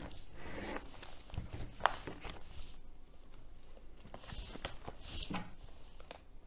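Scattered rustling with a few light taps and clicks: paper printables and cards being handled and moved about.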